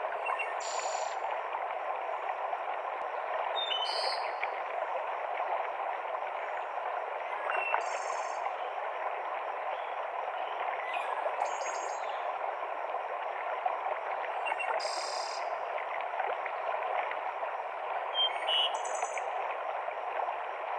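Forest mountain stream cascading in a steady rush of water, with a bird giving a short high call about every four seconds.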